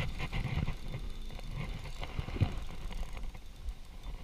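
Spinning reel being cranked to bring in a hooked largemouth bass, with irregular low knocks and rumble throughout.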